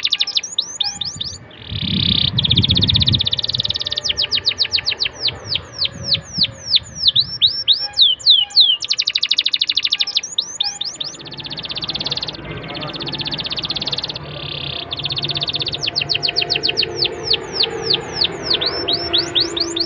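Domestic canary singing: quick runs of repeated falling whistled notes alternate with several stretches of very fast, buzzy trilled rolls.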